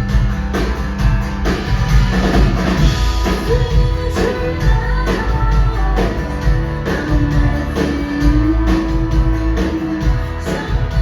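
Live rock band performing a song: a drum kit keeps a steady beat of about two hits a second under guitars, and a singer holds long sustained notes.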